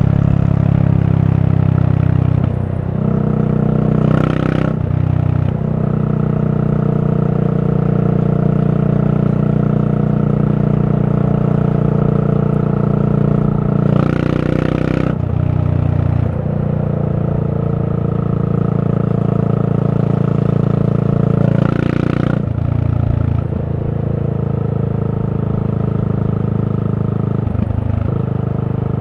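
Yamaha SR400's air-cooled single-cylinder four-stroke engine running at a steady road speed through a Goods tapered cone slip-on muffler. The steady exhaust note drops out briefly several times and then picks up again.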